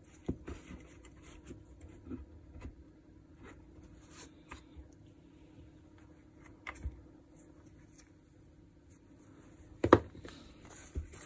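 Hands handling the opened DeWalt DCH333 rotary hammer's plastic and metal parts, with scattered small clicks and rubs. A sharper double knock comes about ten seconds in.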